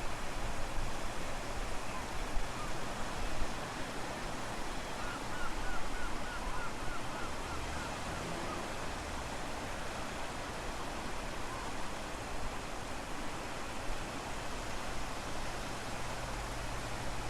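Sea surf washing on a rocky shore: a steady rushing noise that swells and eases. About five seconds in there is a quick run of about ten high chirps.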